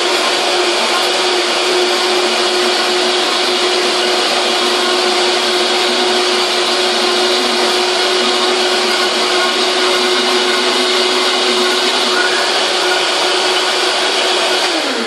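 High-powered countertop blender running at a steady high speed through a thick, icy chocolate shake mix, with a tamper pushed down through the lid to keep the mix moving. At the very end the motor is switched off and winds down with a falling pitch.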